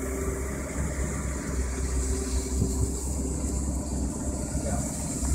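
Sterndrive (I/O) inboard engine of a 1987 Crestliner 24-foot aluminium cabin boat idling steadily with a low, even rumble.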